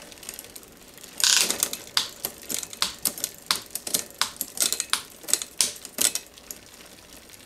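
Schwinn Sidewinder's chain and derailleurs clicking as the pedals are turned by hand and the gears are shifted to test the derailleur adjustment. An irregular run of sharp ticks and clacks, about three a second, begins with a louder rattle a little over a second in.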